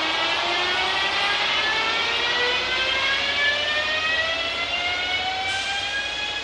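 Siemens Charger locomotive's AC traction motors and inverters whining as the train pulls away, several tones rising steadily in pitch together as it gathers speed, over a low rolling rumble.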